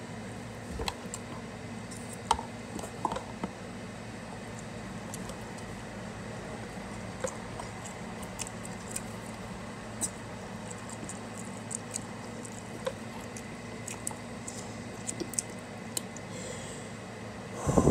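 Someone eating ramen noodles with a fork from a plastic container: scattered light clicks of the fork on the plastic and soft wet slurping and chewing, over a steady low hum. A louder noisy burst comes near the end.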